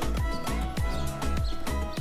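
Background music with a steady electronic beat: a kick drum on about every quarter second, over repeating synth notes.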